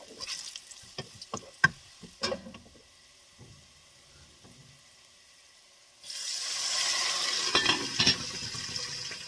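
A wooden spoon scraping and clicking against an aluminium pot as frying onions are stirred for the first couple of seconds. About six seconds in, a steady hiss starts abruptly, and near the end there are two knocks as the aluminium lid is set on the pot.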